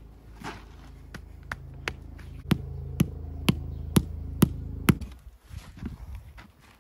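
Hammer striking stone in a steady rhythm, about two blows a second, nine blows that grow louder, then a few lighter irregular taps. Under the blows runs a steady low machine hum that stops about five seconds in.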